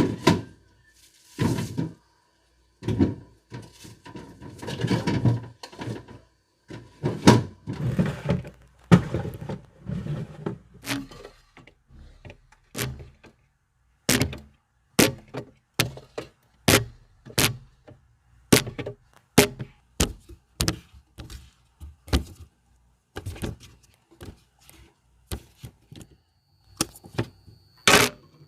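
Items being handled and set into a refrigerator: packaging rustles and knocks at first, then a string of sharp clacks about once a second as items are put down one after another.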